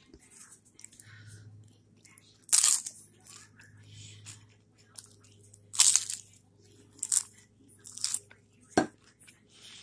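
Crisp puffed-rice cakes spread with peanut butter and jelly being bitten and chewed close to the microphone. There are loud crunches about two and a half and six seconds in, then several more toward the end.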